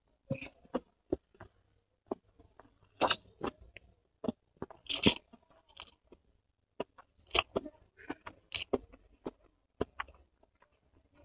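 Close-miked mouth sounds of a person eating chowmein noodles: wet chewing and lip smacks in an irregular run of clicks, with a few louder slurps as noodle strands are drawn into the mouth.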